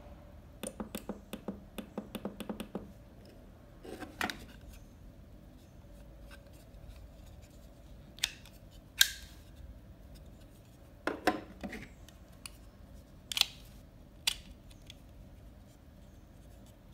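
Small plastic clicks and snaps from a plug-in USB wall charger being handled. A quick run of about a dozen clicks comes first as its timer button is pressed repeatedly. Then come scattered sharper snaps and short scrapes as the interchangeable plug head is slid off and clipped back on, the sharpest snap about nine seconds in.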